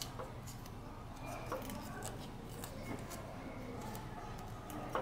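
Faint handling noises: small scattered clicks and rustles of hands winding electrical insulation tape around a rubber stopper in a coolant hose, with a sharper click near the end.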